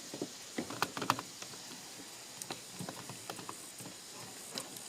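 Scattered light clicks and taps of a tool being fitted against the plastic recoil starter pulley of a string trimmer, clamping it so the rewind spring cannot unwind.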